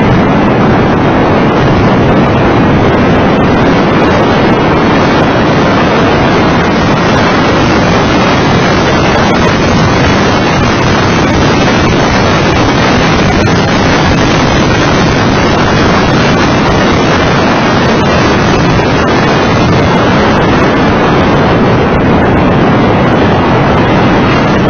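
Steady heavy wind buffeting on the microphone of a camera mounted outside the car at track speed. Underneath it runs the engine of a Mitsubishi FTO GPX, a V6.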